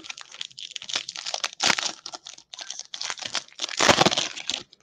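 Foil wrapper of a 2022 Bowman baseball card pack being torn open and crinkled by hand. There are two louder rips, about a second and a half in and near the end.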